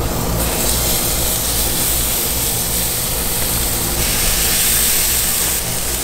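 Marinated yellow jack fillets sizzling on hot gas-grill grates as they are laid down, a loud steady hiss that swells about half a second in. A low steady hum runs underneath.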